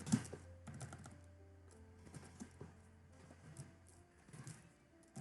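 Computer keyboard typing: irregular, quiet key clicks, the sharpest just after the start.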